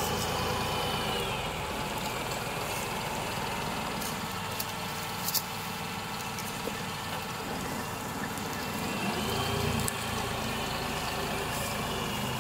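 New Holland tractor's diesel engine running steadily while it drives a tractor-mounted hydraulic sugarcane harvester through standing cane. There are a few sharp cracks about five seconds in, and the engine note swells briefly about nine seconds in.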